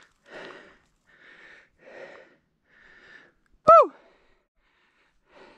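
A hiker's footsteps, several short crunching steps. About three and a half seconds in comes one short, loud cry that rises and then drops in pitch.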